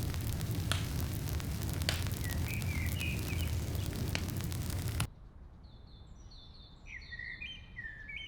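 A steady rushing noise with a low rumble and a few sharp clicks. It cuts off suddenly about five seconds in, leaving small birds chirping in quick repeated calls.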